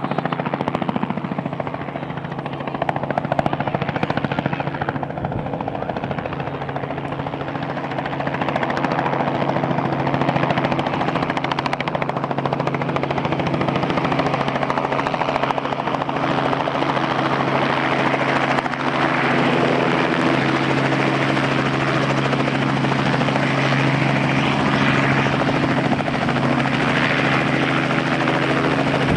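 Robinson R44 helicopter running: a steady hum of piston engine and rotor with several held pitched tones over a broad noise, getting louder about eight seconds in.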